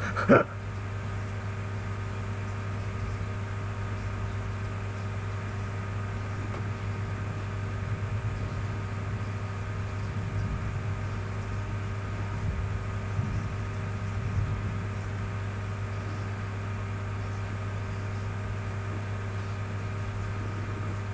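Steady low room hum with a strong drone and several fixed higher tones, picked up by the webcam microphone. There is a brief burst of voice just after the start and faint low murmurs in the middle.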